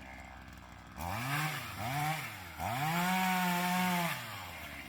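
Chainsaw idling, then revved twice in quick blips and held at full throttle for about a second and a half before settling back to idle.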